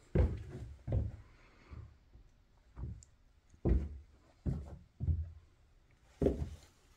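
Slow footsteps across a carpeted floor: about eight dull thuds, roughly one a second.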